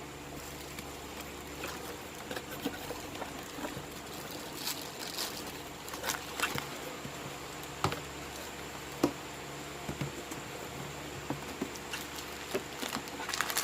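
Scattered light clicks, taps and rustles of packaging and small parts being handled while a solar flood light is unboxed, over a steady low hum.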